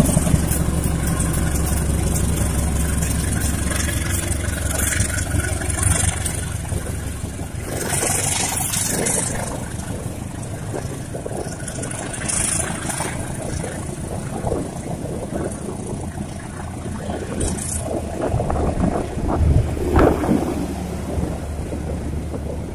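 Diesel-hauled passenger train passing: a steady low locomotive engine drone that fades after about seven seconds, giving way to rattling wheel-and-carriage noise with brief hissing gusts.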